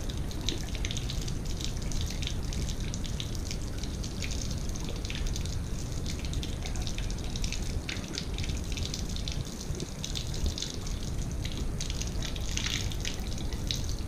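Water draining from a steam boiler's drain valve and splashing steadily onto a concrete floor, as the boiler is flushed of sludge.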